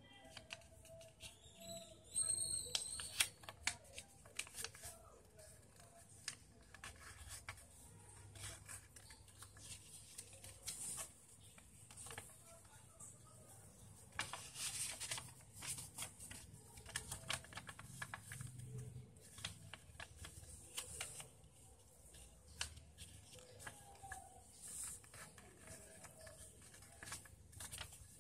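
Sheet of origami paper rustling and crinkling in short, irregular bursts as it is folded and creased by hand. A brief high chirp sounds about two to three seconds in.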